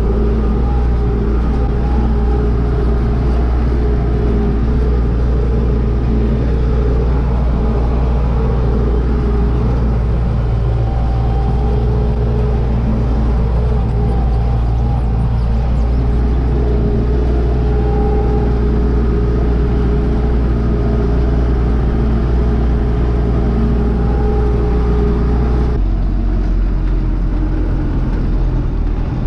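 Belarus MTZ tractor's diesel engine running steadily under load as it pulls a field cultivator, heard from inside the cab. The engine has had its fuel delivery turned up to about 78 hp and runs smoothly. Near the end the sound changes abruptly.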